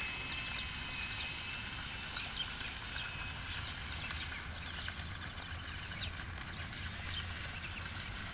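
Small RC boat's electric motor whining steadily on one high note, fading out about three seconds in, over birds chirping and a low wind rumble.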